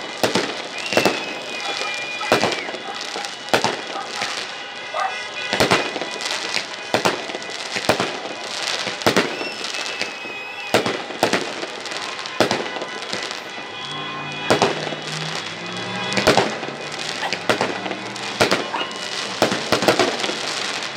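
Fireworks going off in a long string of sharp bangs, roughly one or two a second, with a few thin whistles in between.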